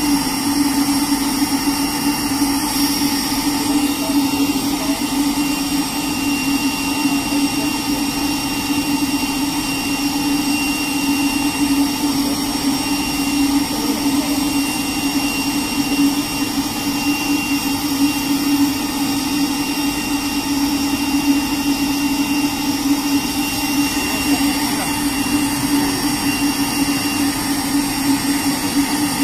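Stainless-steel spray dryer running steadily: an even machine drone with a strong low hum and several constant high-pitched whines.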